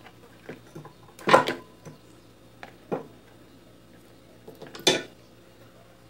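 Sharp clicks and knocks of hands and tools on the plastic blender base and small metal parts as the motor wires are disconnected. Three louder knocks stand out, about a second and a half apart, the strongest near the start and near the end.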